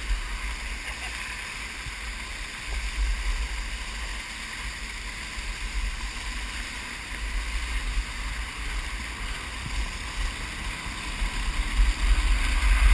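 Wind buffeting the microphone of a water skier's head-mounted camera, with the steady hiss of water spray from the skis planing behind a tow boat; the rumble swells in gusts a few seconds in and again near the end.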